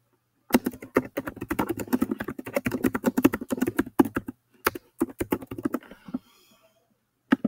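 Fast typing on a computer keyboard: a quick, even run of keystrokes for about four seconds, a short pause, then a few more keys, with a single sharper click near the end.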